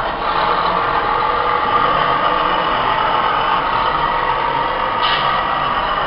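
A radio-controlled model crane's sound module plays a diesel truck engine, running steadily while the crane holds its load. There is a brief higher-pitched burst about five seconds in.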